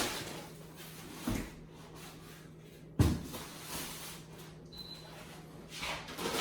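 Knocks and thuds of boxed parts and cardboard being handled, with one sharp knock about three seconds in and a softer thud about a second in.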